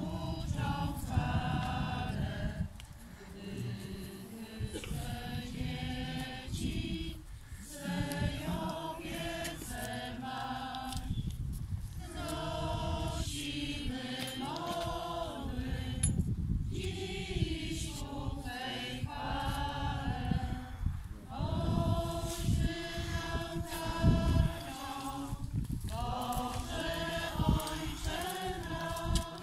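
A crowd singing a hymn together in slow phrases of long held notes, with short breaks between the lines.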